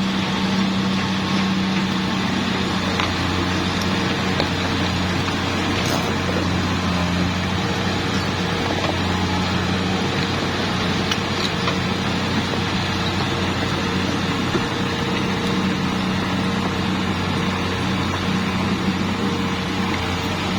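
Hitachi excavator's diesel engine running at a steady speed, a constant low hum with a few faint ticks.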